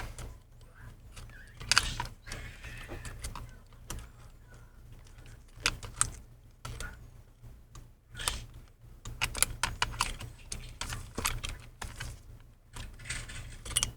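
Irregular small clicks and taps, thicker in the second half, from thin Wi-Fi antenna cables being pushed and wiggled through a narrow gap under a MacBook Pro's heatsink, over a low steady hum.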